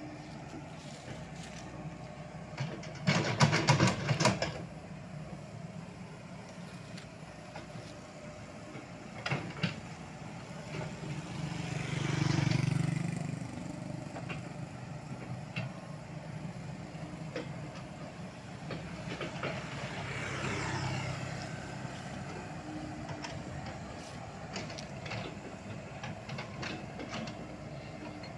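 Komatsu PC78US mini excavator's diesel engine running steadily as it works the dirt slope, with a loud burst of clattering about three seconds in. The engine swells louder at about twelve seconds and again around twenty seconds.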